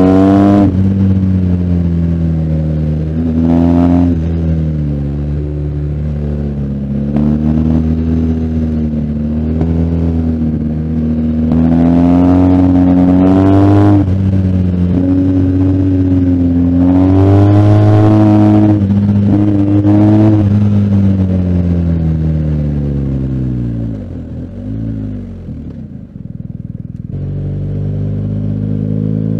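BMW R1250GS Adventure's boxer twin engine accelerating hard and easing off on twisty mountain road corners, its pitch climbing and falling again and again. Near the end it falls to a low, quiet run for a few seconds, then picks up again.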